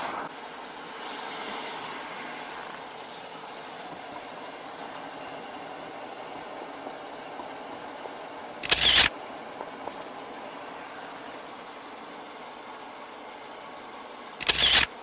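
Crickets or other night insects trilling steadily and high-pitched. Two short, loud bursts of noise cut across it, about nine seconds in and again near the end.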